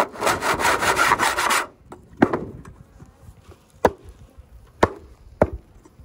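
A metal hive tool scraping debris off a wooden screened bottom board in quick back-and-forth strokes for about the first second and a half. Four sharp knocks follow, spread over the rest of the time.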